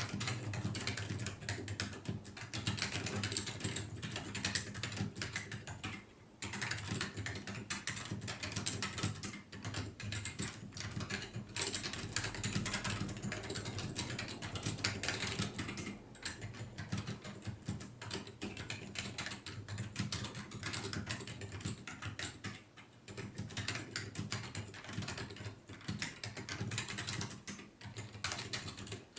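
Continuous fast typing on a Matias Quiet Pro mechanical keyboard with dampened ALPS-style switches: a dense run of keystroke clicks, with a brief pause about six seconds in.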